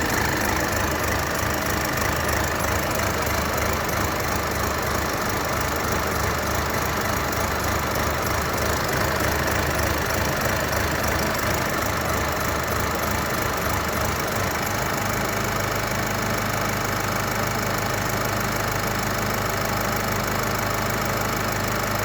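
Mercedes-Benz OM654 2.0-litre four-cylinder diesel idling after a cold start, running roughly with an uneven, pulsing low rumble typical of a misfire and shaking at idle. About two-thirds of the way through the low rumble turns steadier.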